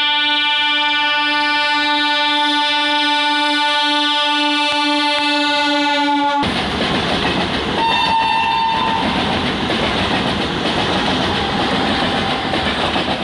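Train horn held on one steady chord, cutting off suddenly about six seconds in, then the loud running noise of a train with a brief higher tone a little later.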